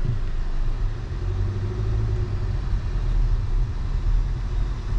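Steady low rumble of a car driving, its road and engine noise heard from inside.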